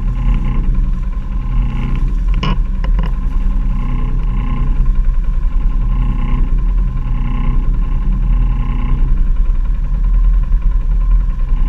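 A quad (ATV) engine running, its note swelling and easing every second or so. There are a couple of sharp knocks about two and a half seconds in.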